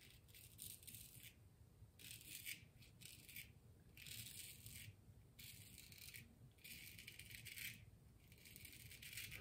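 Faint scraping of a razor blade through lathered stubble on the neck, in a series of short strokes about one a second.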